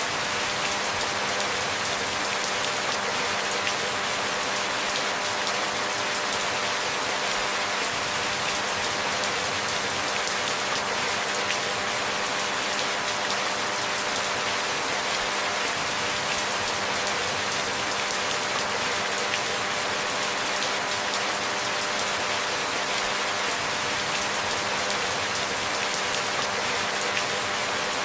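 Steady rain falling, an even, dense patter that stays the same throughout, without thunder or sudden changes.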